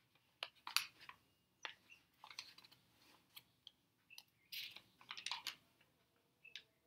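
Faint computer keyboard typing: irregular clicks and taps in small clusters, busiest about four and a half to five and a half seconds in.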